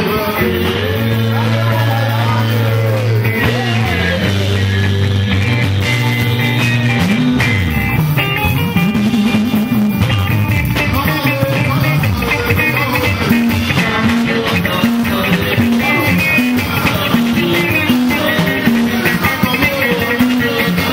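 Live band music with electric guitar and bass and a singing voice, loud and steady; a short guitar figure repeats evenly through the second half.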